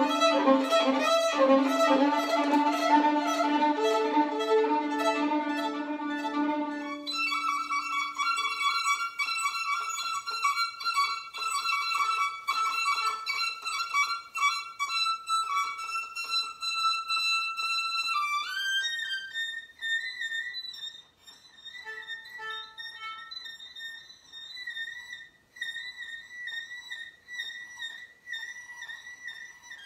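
Solo violin played with the bow. It opens with rhythmic, full chords over a low note, then holds a long high note. About two-thirds through it slides up to quieter, very high notes broken by short gaps.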